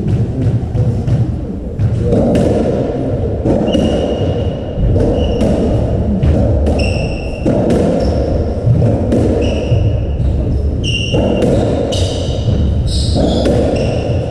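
A racketball rally in a hall-like court: the hollow rubber ball knocking off rackets and walls, with short high shoe squeaks on the wooden floor from a few seconds in.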